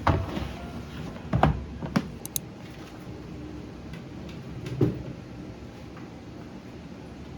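Four or so knocks and thumps of things being handled and set down, the loudest about a second and a half in, then a quiet room for the last couple of seconds.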